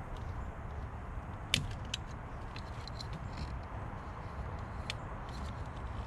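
A few light clicks and taps of hand work on plastic wiring connectors, the sharpest about a second and a half in, over a steady low rumble.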